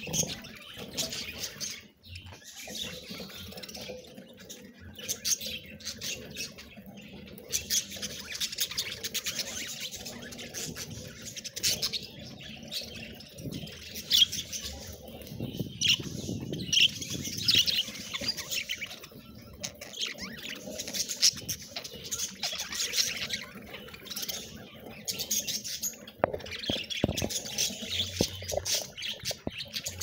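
A flock of budgerigars chattering together, a dense stream of quick overlapping chirps and clicks.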